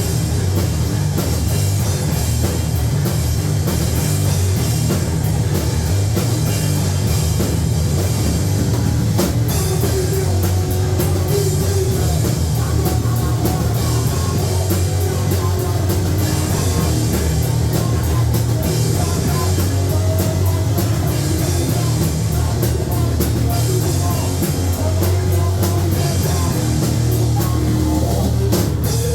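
A live heavy rock band playing loud and without a break: distorted electric guitar over a pounding drum kit with a heavy low end.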